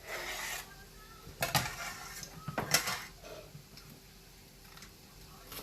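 Kitchen pots, pans and utensils being handled: a brief scrape, then two sharp metal clatters about a second apart, followed by a few softer knocks.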